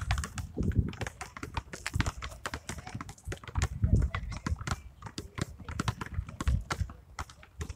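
Several basketballs being dribbled at once on an outdoor asphalt court: many overlapping bounces in an uneven patter, several a second.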